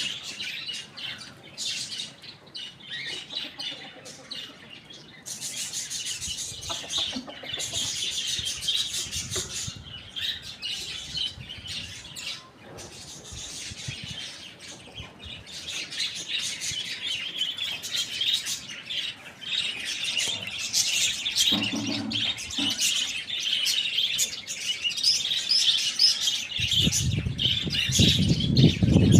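A flock of birds chirping densely and continuously in high, rapid calls. A deeper, louder low sound joins near the end.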